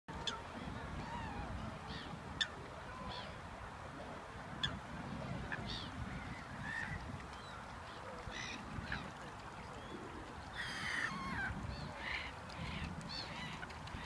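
Lakeside waterbirds calling: Canada geese honking and gulls calling in short, scattered calls, with a denser flurry of calls near the end, over a steady low rumble. Two sharp clicks stand out, about two and four and a half seconds in.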